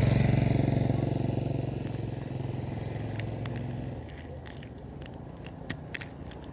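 A small engine running close by and fading away over about four seconds. Several sharp clicks come near the end.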